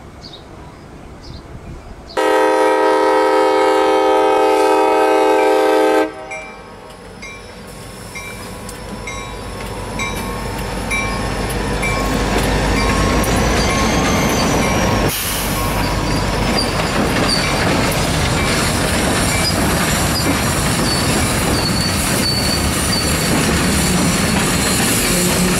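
A diesel locomotive's air horn sounds one long, loud chord blast lasting about four seconds. Then a train's rumble grows louder over several seconds and the train rolls by steadily, its wheels squealing high over the clatter.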